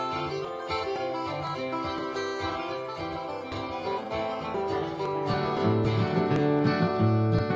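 Solo electric guitar picking a tune with no singing. About five seconds in, a louder, fuller guitar part with deep rhythmic bass notes takes over.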